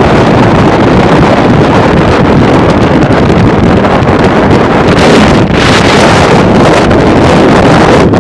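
Loud, steady rush of wind buffeting the microphone, mixed with road noise from a car driving at freeway speed.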